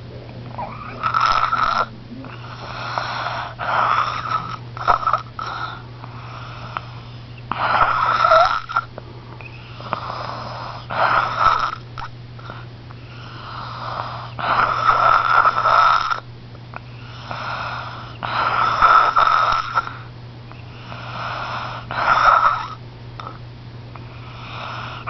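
Sleeper snoring in long, noisy breaths, one every two to three seconds, some drawn out over about two seconds.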